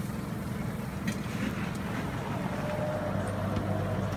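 A steady low motor hum running at constant speed, with a deeper note growing stronger about three seconds in.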